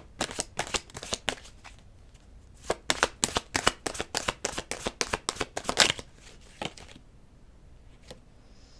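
Oracle cards being shuffled by hand: two runs of rapid card flicks and snaps, the second longer, followed by a couple of single taps.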